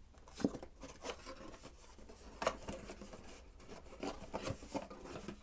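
Cardboard box being opened by hand: faint rubbing and scraping of cardboard as the tuck tab is worked out of its slot, with a few light taps and clicks.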